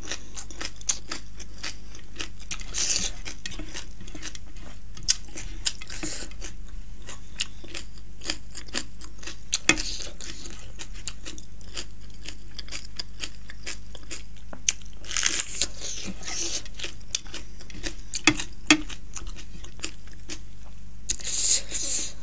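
Close-up crunching and chewing of a raw green chili pepper: a few crisp bites scattered through, with wet chewing and small mouth clicks between them.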